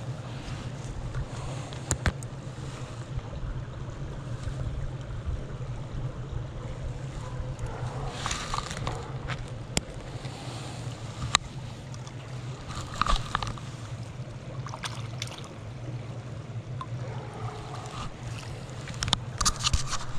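Steady rush of stream water with wind rumbling on the microphone, broken by a few short louder noises and sharp clicks.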